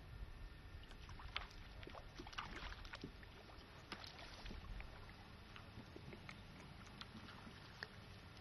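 A hooked fish splashing and thrashing at the water's surface while being played on a fishing pole: faint clusters of splashes over the first four seconds or so, then only scattered small ticks, over a low background rumble.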